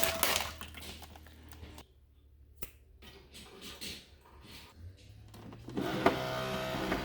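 Saeco super-automatic espresso machine: a few light clicks, then about six seconds in its pump starts with a steady hum as it begins a rinse cycle of the descaling program.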